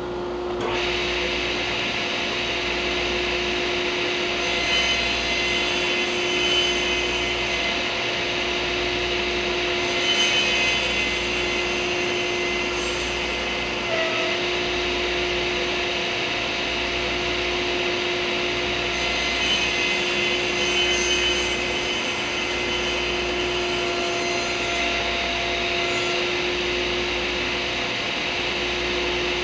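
Table saw coming on about half a second in and running steadily while it crosscuts a glued-up hardwood cutting-board blank, the sound swelling briefly a few times as the blade bites through the wood.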